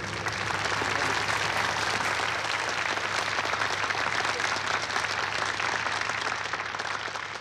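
A crowd applauding steadily, swelling in at the start and fading out at the end, over a steady low hum.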